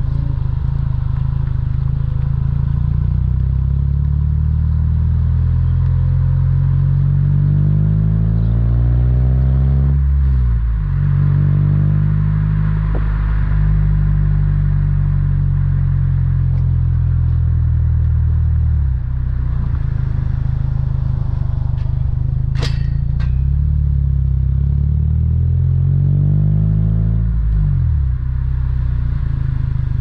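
1992 Honda Civic EG5's D16Z6 1.6-litre SOHC VTEC four-cylinder heard at the tailpipe through the stock exhaust and a Magnaflow muffler while driving. Revs climb slowly, fall sharply at an upshift about a third of the way in, hold steady, climb again and fall sharply at another upshift near the end. Two sharp clicks a little past the middle.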